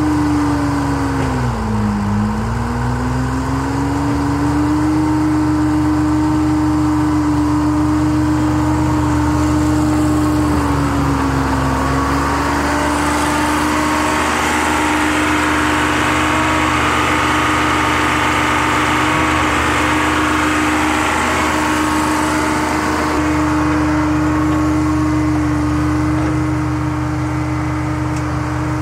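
Gradall excavator's engine running steadily while the machine digs and swings, its pitch sagging briefly under load about two seconds in and again around eleven seconds. A hiss swells over the engine through the middle stretch.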